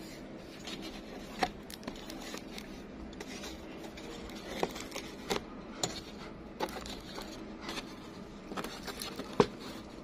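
Handling noise: scattered light clicks and crackles, about a dozen short ticks at uneven spacing, the sharpest near the end, over a steady low hum.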